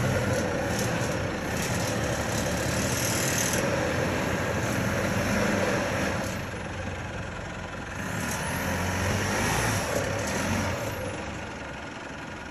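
Engine of a Mitsubishi four-wheel drive running steadily as it crawls slowly up a sandstone rock step.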